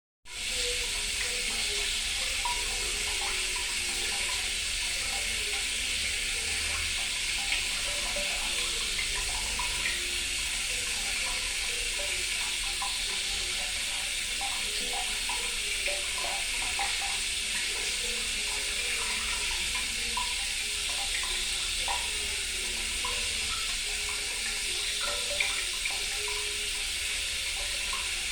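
Water running steadily, like a tap into a sink, with many small bubbling and gurgling blips over the steady rush.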